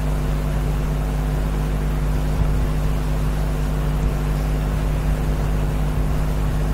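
Steady background hum with hiss, unchanging throughout, typical of mains hum picked up by the recording setup.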